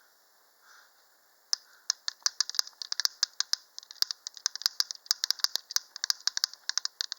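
Homemade wire-pulled woodpecker model pecking: its metal beak strikes a metal piece inside the post, metal on metal, giving a fast, irregular run of sharp clicks, several a second, that starts about a second and a half in. The clicking is meant to sound similar to a woodpecker.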